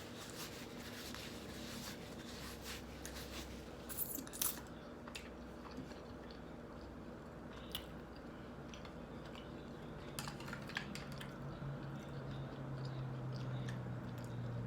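Close-miked chewing of a breakfast sandwich: soft wet mouth clicks and smacks, with a cluster of louder clicks about four seconds in.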